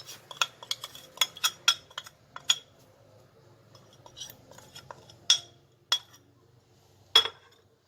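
Spoon clinking and tapping against a bowl as spices are added: a quick run of small clinks over the first two and a half seconds, then a few single knocks, the loudest near the end.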